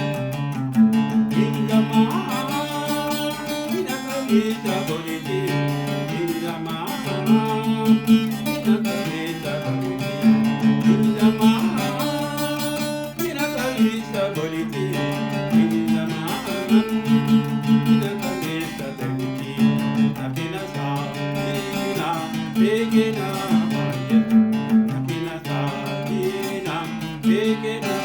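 Music: guitar-led song with plucked and strummed acoustic guitar over a steady repeating bass pattern.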